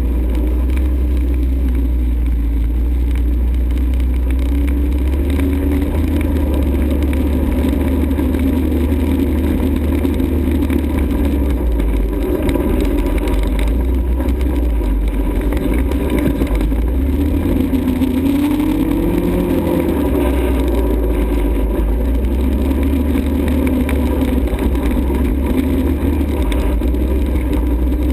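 ATV engine running under way, its pitch rising a couple of times as the throttle opens, over a heavy low rumble.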